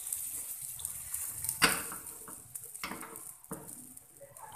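Egg-and-sausage martabak batter sizzling in a small nonstick frying pan over a gas burner, fried without added oil, the hiss fading. A few sharp knocks come through it, the loudest about a second and a half in.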